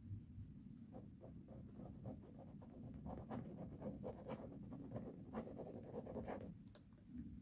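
Fingers rubbing sticky tape-glue residue on a leather chair seat: a faint run of quick, irregular scrubbing strokes that starts about a second in and stops near the end.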